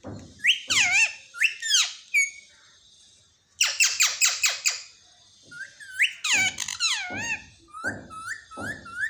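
Pet parrot calling: whistled calls that swoop up and down in pitch, with a quick run of about five sharp chirps about four seconds in after a short pause.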